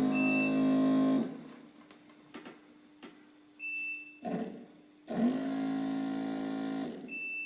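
Rebuilt Volvo PV544 electric wiper motor, its gearbox freshly cleaned and repacked, being bench-tested on power. It runs twice, each time for under two seconds, about five seconds apart: the pitch sweeps up quickly to a steady hum, then stops.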